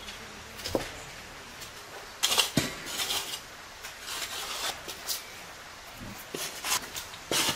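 A few knocks and clinks of kitchenware against a large metal mixing bowl, with short scraping rustles, as dry yeast is sprinkled over flour. The loudest knocks come about two seconds in and again near the end.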